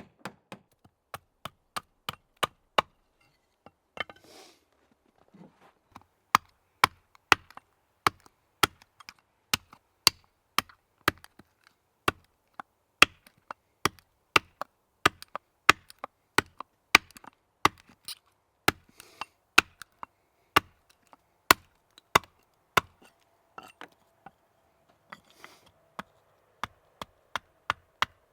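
Hand tool striking wood: a long series of sharp, separate blows, about two a second, in runs broken by short pauses.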